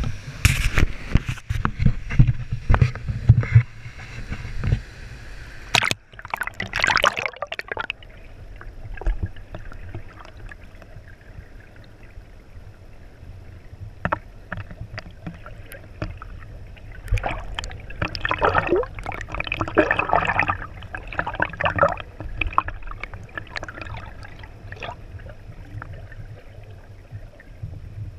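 An action camera is handled and plunged into the water, with knocks and a splash in the first several seconds. After that it is muffled underwater sound: water sloshing and gurgling around the submerged camera, with scattered small knocks and a louder bubbling stretch in the middle.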